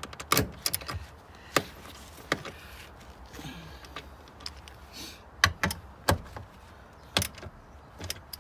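Socket wrench with a 14 mm socket tightening a seat-mounting bolt: irregularly spaced sharp metallic clicks and clinks of the tool working the bolt.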